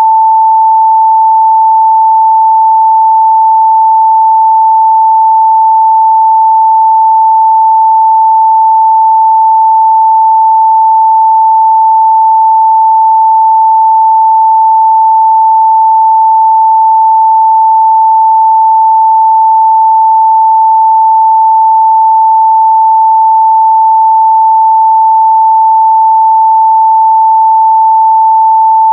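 A steady, loud 885 Hz sine-wave test tone, one pure pitch held without change.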